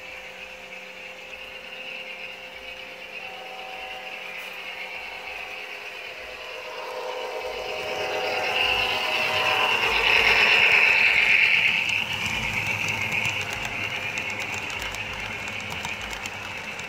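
HO scale model train, an Atlas locomotive hauling Walthers passenger cars, running on the track with a whirring motor and rolling wheels. It grows louder as the train comes out of the tunnel and passes close, is loudest about ten seconds in, then eases as the cars roll by.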